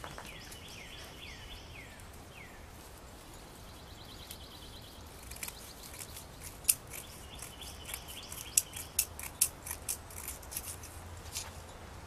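Scissors snipping through cement-soaked cloth: a series of sharp, irregular snips through the second half. Small birds chirp behind it, with a quick run of falling chirps in the first couple of seconds.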